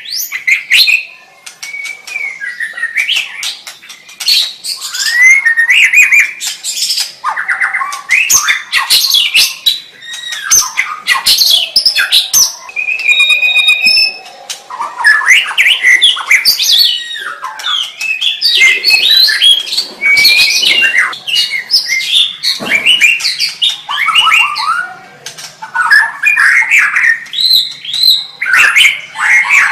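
White-rumped shama (murai batu) singing a long, varied song of loud whistled phrases, fast trills and clicking notes, with brief pauses between phrases.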